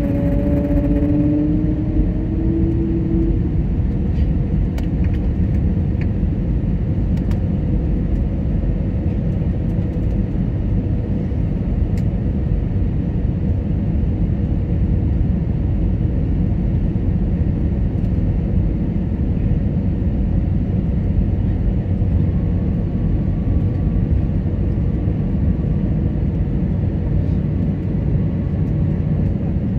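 Steady low rumble of airflow and engines inside the cabin of an Airbus A320neo during its descent to land. A humming tone rises in pitch over the first few seconds and fades, and a fainter steady hum carries on under the rumble.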